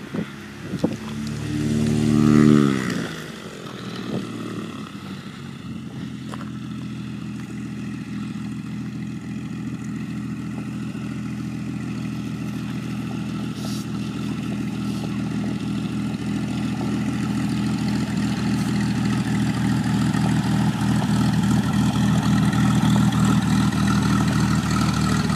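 Cessna single-engine plane's piston engine and propeller running steadily at taxi power, growing gradually louder as it approaches. About two seconds in there is a brief loud sound that falls in pitch.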